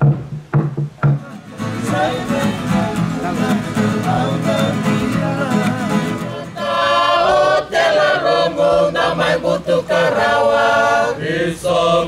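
A Fijian lali, a wooden slit log drum, beats evenly for about a second, then acoustic guitars and a ukulele strum chords. About six seconds in, men's voices join, singing in harmony over the strumming.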